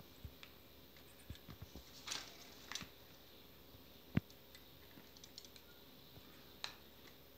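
Faint, scattered taps and clicks of hands handling a smartphone held in a phone clamp on a tripod head, with one sharper click about four seconds in.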